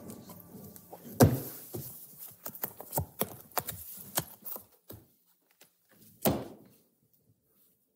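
A sharp thump about a second in, the loudest sound, then a quick run of taps and knocks for a few seconds and another thump a little past six seconds: hands slapping and tapping a table while cards are picked up.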